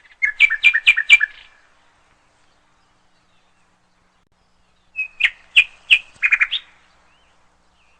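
A bird chirping in two bursts of quick, sharp calls: one at the start and another about five seconds in.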